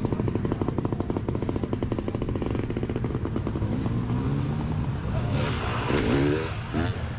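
Motocross motorcycle engines running hard, a fast even pulsing at first, then revs rising and falling as bikes accelerate and pass.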